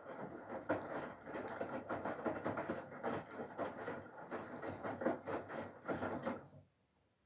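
Water sloshing and splashing in the tumbling drum of a Whirlpool FSCR90425 front-loading washing machine during its rinse, an irregular, busy churning that stops abruptly near the end.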